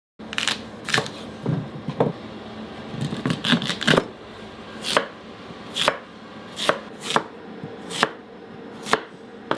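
Knife cutting a raw sweet potato: a series of sharp cuts, bunched and quick in the first four seconds, then roughly one cut a second.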